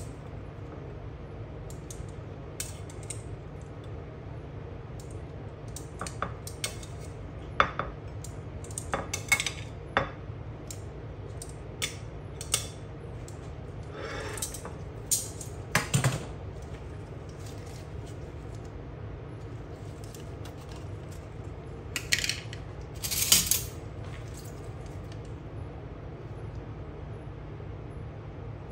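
Metal utensils clinking and tapping against a ceramic dinner plate as food is set on it. The clinks are scattered and irregular, with a quick cluster about three-quarters of the way through.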